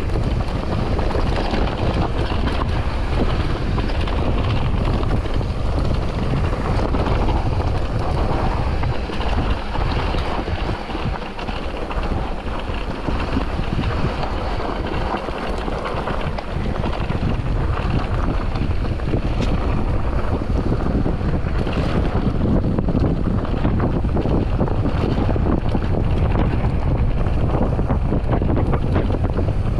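Wind rushing over the microphone of a camera on a mountain bike descending fast, mixed with the rumble and rattle of the ride over the trail; the wind eases for a few seconds around the middle.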